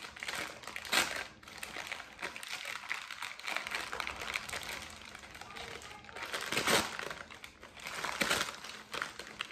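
A brown paper bag being unfolded and worked open by hand, crinkling and rustling throughout, with louder crackles about a second in and twice more near the end.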